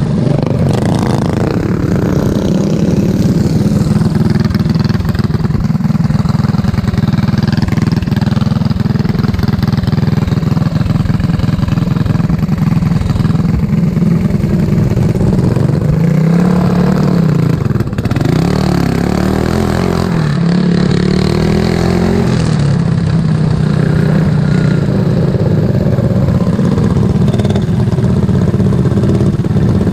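Racing lawn mower's engine running hard and steadily, its pitch dipping and climbing again a little past halfway as it slows and accelerates back up.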